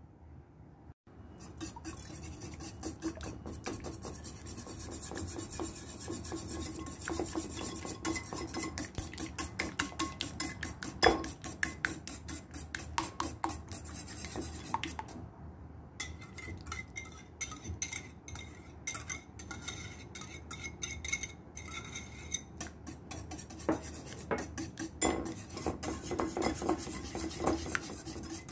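Wire whisk beating egg yolks by hand in a porcelain bowl: a fast, steady run of scraping clicks as the wires strike and rub the bowl, with a brief lull about halfway through.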